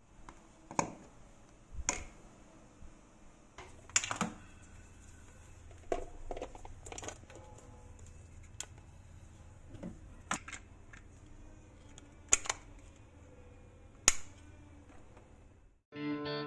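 Sharp plastic clicks and knocks of a 13 A plug, switched socket and wall-socket switch being handled and plugged in. About ten separate clicks come a second or two apart, over a faint low hum that comes in about four seconds in.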